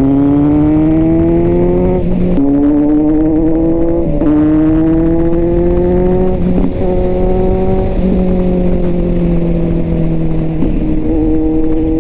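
Kawasaki Z900's inline-four engine accelerating up through the gears. The pitch climbs, drops sharply at upshifts about two and a half and four seconds in, climbs again, then falls off slowly over the last few seconds as the throttle is eased.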